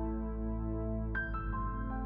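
Background music: a slow ambient piece with sustained low chords, and a short run of struck notes stepping down in pitch about a second in.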